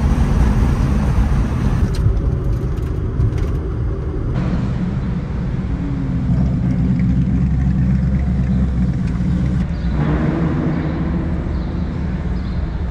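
Car engine and road rumble, starting inside a small Honda kei car's cabin at highway speed; the sound changes abruptly about 2, 4 and 10 seconds in.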